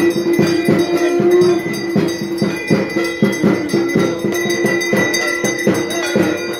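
Dhak drums beating a fast, even rhythm of about four strokes a second, over a steady held tone, as ritual accompaniment to a Durga Puja rite.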